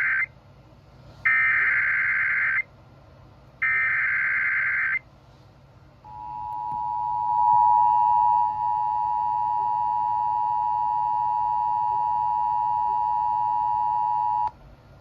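Emergency Alert System tones: three bursts of SAME header data, a warbling digital screech, the first one clipped short. Then the steady two-tone EAS attention signal fades in, holds for about eight seconds and cuts off, announcing a National Weather Service flash flood warning.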